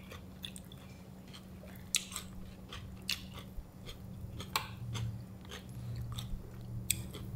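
Close-up chewing and biting of grilled seasoned ranchera beef, with a few sharp mouth clicks and crunches spread through, over a faint steady low hum.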